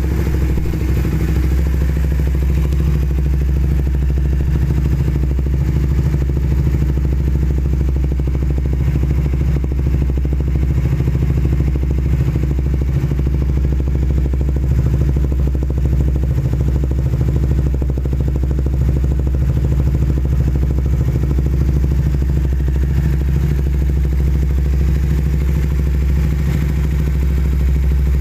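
Suzuki Satria F150's single-cylinder four-stroke engine idling steadily through a Redleo Sonic aftermarket exhaust, a low, even exhaust note.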